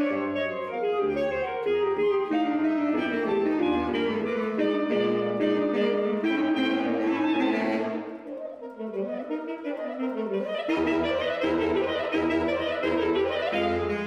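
Saxophone quartet (soprano, alto, tenor and baritone saxophones) playing a busy contemporary passage of overlapping pitched lines. About eight seconds in it thins and drops in level, with lines that bend in pitch. A little under three seconds later, low repeated notes come back in under the upper voices.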